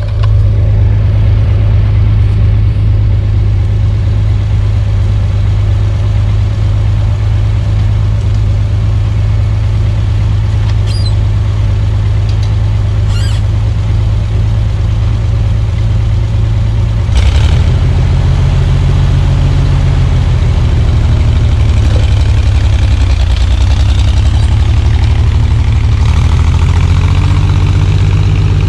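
Oliver 1850 tractor engine running steadily at idle. About two-thirds of the way in it gets louder and its note changes as the tractor pulls away, and its pitch rises near the end.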